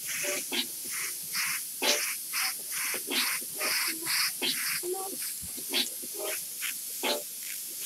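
Airbrush spraying: a steady hiss of air, with short rhythmic bursts about twice a second over it.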